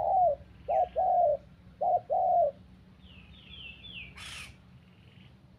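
Spotted dove cooing: a short note followed by a longer one, repeated in three phrases over the first two and a half seconds. After that, a small bird gives a quick run of high falling chirps, and there is one short burst of noise.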